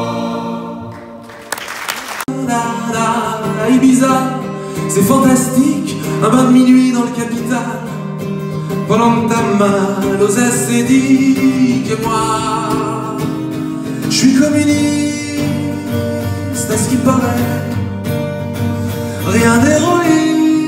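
Live French chanson. A held keyboard chord fades out, then the sound cuts abruptly to a man singing over a strummed acoustic guitar.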